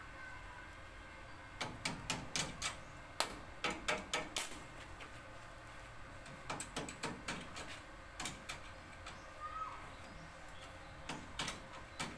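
Stick welder arc crackling and sputtering in short, irregular spurts as the electrode is struck and run on steel, in three spells with pauses between.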